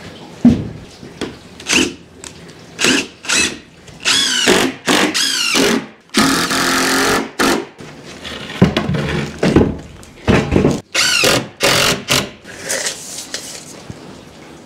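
Power drill run in a dozen or so short bursts, two of them held for over a second with a rising whine, as when driving screws into a wooden build.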